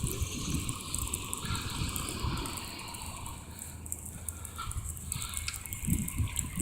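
Bicycle riding over a snowy road: a steady hiss of tyres through snow and slush, with wind rumbling on the microphone and small rattles.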